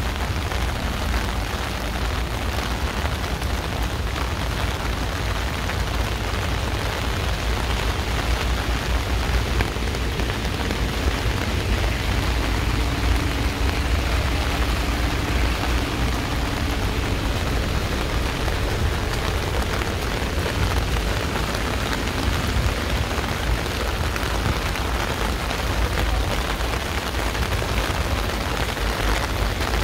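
Heavy rain pouring steadily, an even hiss with a constant deep rumble underneath. A faint low hum rises out of it for a few seconds about halfway through.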